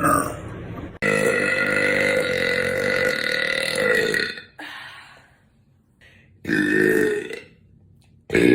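Women burping loudly: one long, steady burp of about three seconds starting a second in, then a short burp, then another about a second long near seven seconds. Each starts and stops abruptly.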